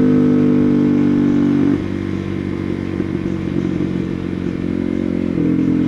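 Supermoto motorcycle engine cruising under steady throttle, heard from the rider's seat. About two seconds in, the engine note drops as the throttle is eased off for a curve, and it picks up again slightly near the end.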